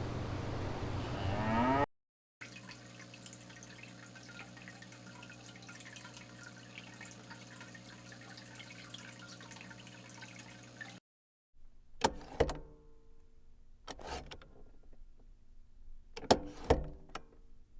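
A cow mooing, the call rising in pitch just before it breaks off. Then a steady low hum, and later a few sharp knocks.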